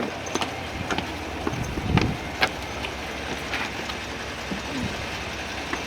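Steady low rumble with scattered knocks and clicks. A dull thump about two seconds in is the loudest sound.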